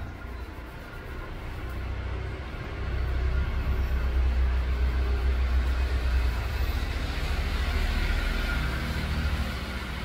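A vehicle going past: a steady low rumble with a rushing noise that swells about three seconds in and holds.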